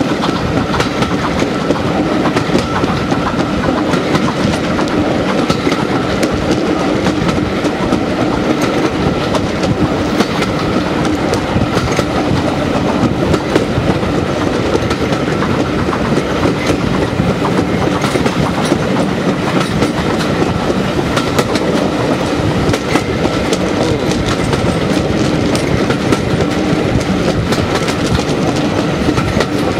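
Passenger coaches of a heritage steam train running along the line, heard from an open coach window: a steady rumble of the wheels with many clicks as they pass over rail joints.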